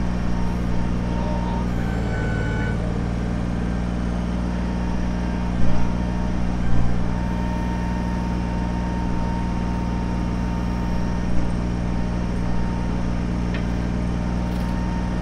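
Kubota BX23S compact tractor's three-cylinder diesel engine running at a steady speed, with a thin steady whine over it. Two brief louder knocks come around the middle.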